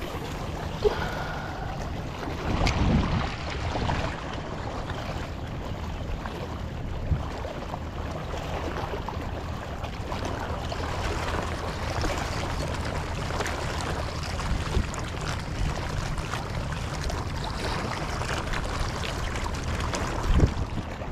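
Small waves lapping and splashing against shoreline rocks, with wind on the microphone and a few brief knocks.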